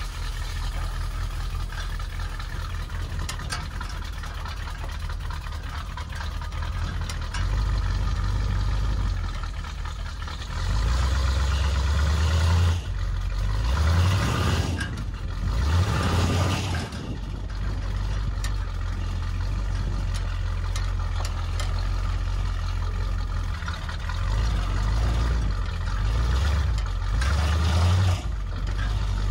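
1965 International pickup's engine (a motor out of a Chevrolet Caprice), running through its newly fitted exhaust as the truck pulls off and drives, revving up in louder stretches around the middle and again near the end. Near the end an odd noise sets in, later traced to the transmission lines catching after the exhaust work.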